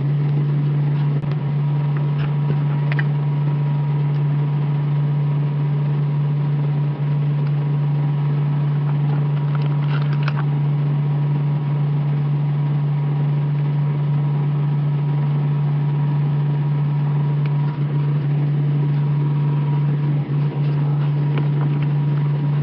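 A steady low mechanical hum that does not change in pitch or level, with a few faint clicks of metal parts being handled, one near three seconds in and a small cluster about ten seconds in.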